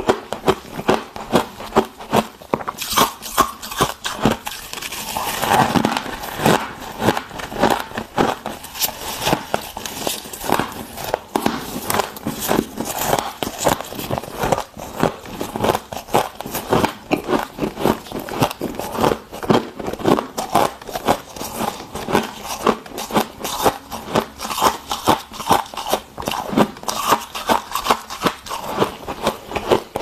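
Mouthfuls of soft freezer frost crunching and crackling as they are bitten and chewed, in rapid crisp crunches throughout, with gloved hands scraping and gathering frost from the chest freezer.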